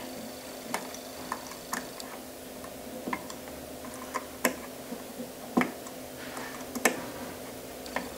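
A screwdriver and metal parts clicking and ticking as a bracket is screwed onto the ball nut of a ball screw, about ten sharp clicks at irregular intervals over a low steady hum.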